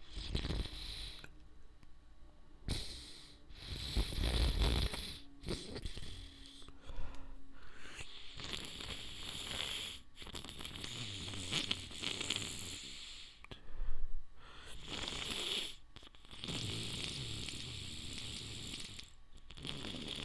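A person's wet, stifled sneezes: several separate bursts with noisy stretches between them, the loudest about 14 seconds in.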